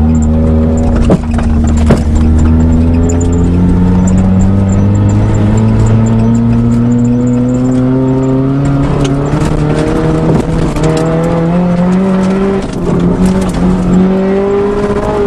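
1992 Eagle Talon's engine pulling under load inside the cabin, its note climbing slowly and steadily as the car gathers speed. Scattered sharp knocks and rattles come over the engine sound.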